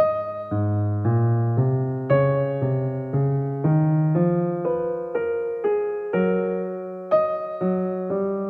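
Soft background music on electric piano: a slow sequence of single notes, about two a second, each ringing and fading.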